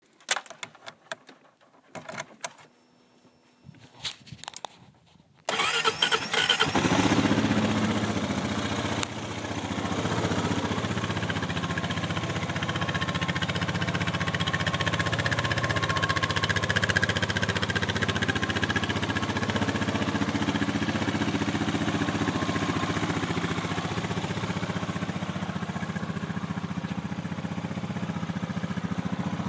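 Honda Rancher 420 ES ATV's single-cylinder four-stroke engine: a few clicks, then about five seconds in it starts and runs, a little louder for a few seconds before settling to a steady idle.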